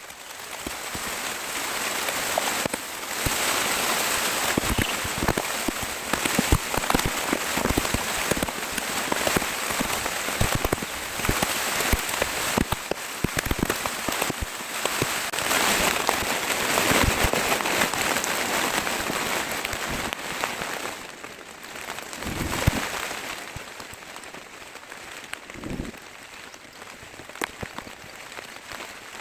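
Heavy rain falling, with many individual drops striking close by. It eases and grows quieter about two-thirds of the way through.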